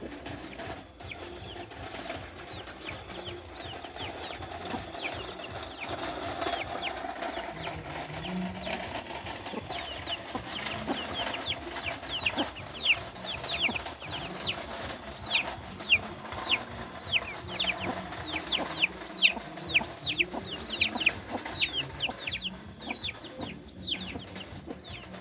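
Chicks peeping: a quick run of short, high calls, each sliding down in pitch, coming thicker and louder about ten seconds in. The broody hen's low clucking sits underneath.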